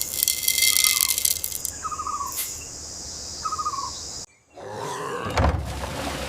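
Steady high insect buzzing with short chirping bird calls repeated every second or so. About four seconds in the sound cuts out briefly and gives way to a steady hiss with a low thud.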